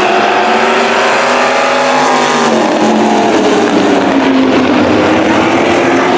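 Engines of several old demo cars racing around an oval, running hard together. Their overlapping pitches rise and fall slowly as the cars come past and move away.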